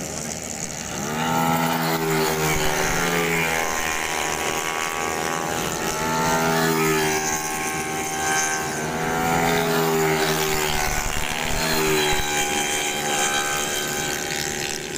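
Racing automatic scooters going through a bend at high revs. Their engine notes rise and fall in pitch in waves as the bikes pass one after another.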